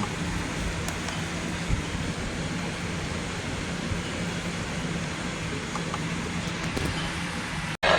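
Steady background hiss with a faint low hum. It cuts out abruptly for a moment near the end.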